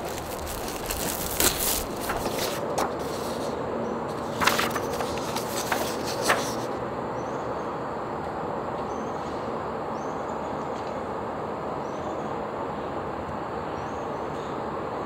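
Plastic shrink wrap crinkling and a cardboard box being handled, with several sharp crackles over the first six seconds. After that there is only a steady background hum with faint high chirps repeating about every second and a half.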